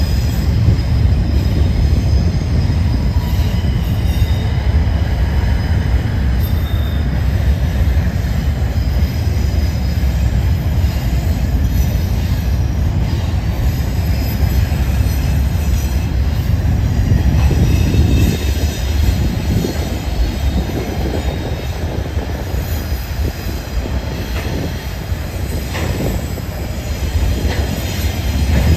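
Freight train covered hopper cars rolling past, a steady low rumble of wheels on rail with thin, high-pitched wheel squeal over it and a few clacks of wheels over rail joints near the end.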